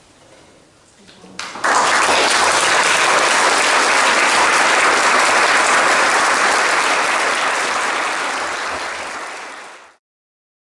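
Audience applauding, starting suddenly about a second and a half in, holding steady, then fading away near the end.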